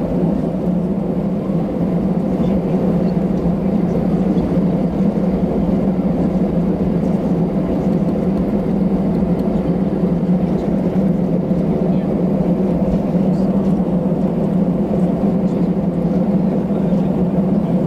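Airbus A319 jet engines at taxi idle, heard inside the passenger cabin as a steady low hum with no change in level.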